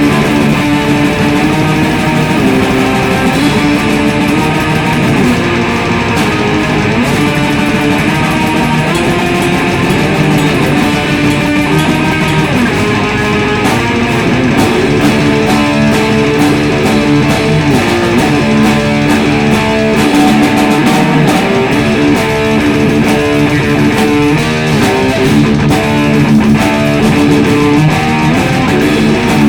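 Raw black metal played live by a distorted electric guitar and a drum kit, loud and continuous, with no vocals.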